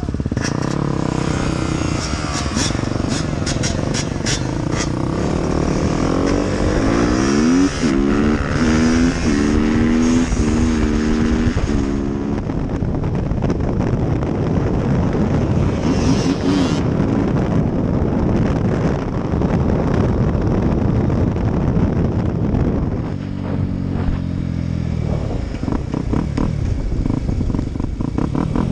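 Dirt bike engine heard from the rider's helmet, accelerating with its pitch climbing repeatedly as it goes up through the gears, then running at speed under heavy wind noise on the microphone. The pitch steps down again near the end as the bike slows.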